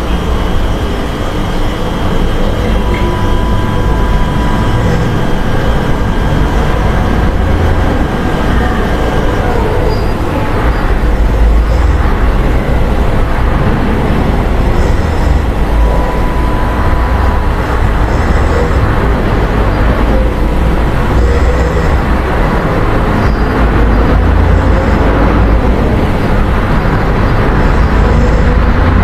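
Loud, steady low rumble with faint thin whining tones over it during the first third, like the running noise of a moving vehicle; no rhythmic snoring breaths stand out.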